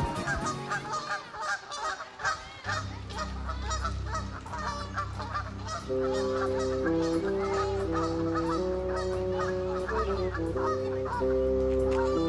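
Canada goose goslings peeping continuously, a quick run of short rising calls. Soft sustained music chords come in under them about a third of the way through and grow louder about halfway.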